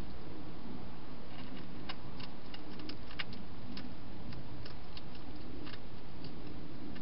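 Wild hedgehog eating from a dish, its chewing heard as irregular crisp clicks, a few a second, over a steady low background noise.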